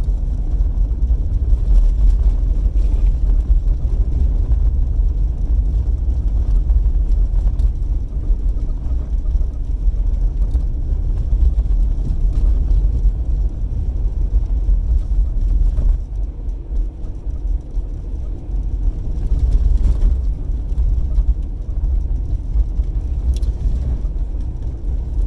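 Car cabin noise while driving: a steady low rumble of engine and tyres on the road, uneven in strength, easing briefly about two-thirds of the way through.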